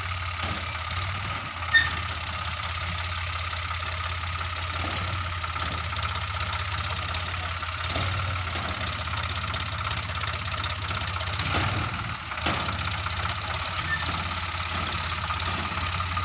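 Sonalika tractor's diesel engine running steadily at low speed while it tows a loaded trailer-mounted thresher over field stubble. There is one sharp clank about two seconds in.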